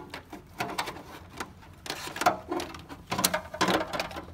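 Nissan GT-R R35 factory plastic fuel pump basket and its corrugated wiring loom rustling, scraping and knocking as the basket is lowered by hand into the cut-open sheet-metal fuel tank, a run of irregular handling noises.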